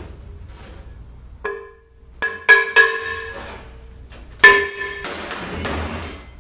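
Metal transmission parts clinking during a bench teardown: about five sharp knocks, each ringing briefly at the same few pitches. A rougher scraping sound follows about five seconds in.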